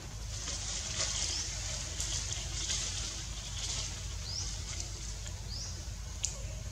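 Outdoor ambience among the temple stones: short, high-pitched rising chirps repeat about once a second over a steady low rumble, with a single sharp click a little after six seconds in.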